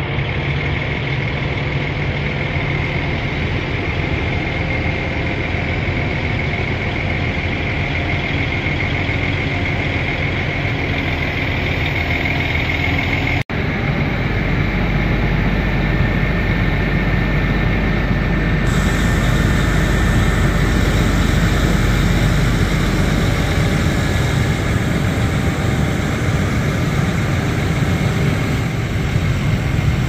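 Truck-mounted boom crane's engine running steadily while it lifts a cut section of maple on the hook, with a high steady whine over it in the first half. The sound breaks off for an instant about thirteen seconds in, and the engine carries on after.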